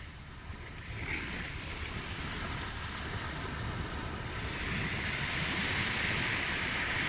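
Sea surf: waves breaking and washing on the shore as a steady hiss, swelling louder in the second half as a wave comes in.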